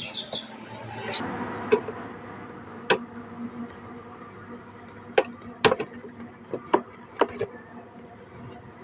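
Sharp metal clinks and knocks of hand tools and parts during a scooter rear-shock replacement: about half a dozen separate strikes, scattered irregularly, with a brief scraping rustle about a second in.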